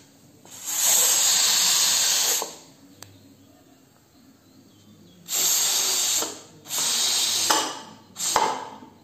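Steam hissing in bursts from the vent of a Prestige aluminium pressure cooker as its whistle weight is lifted, letting out the remaining pressure. One hiss of about two seconds comes near the start, and a run of three or four shorter ones follows in the second half.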